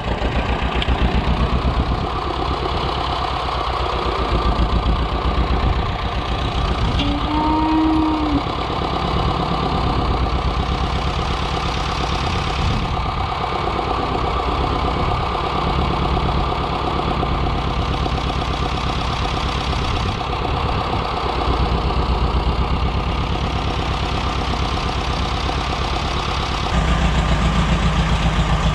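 Diesel farm tractor engine running while it pushes manure through a barn. Its level swells and falls as the load changes, and it rises clearly near the end.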